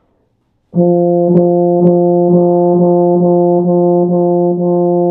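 Euphonium holding one steady note, re-tongued about twice a second with light tongue strokes while the airstream stays unbroken: a long tone broken up only by the tongue. The note starts about a second in.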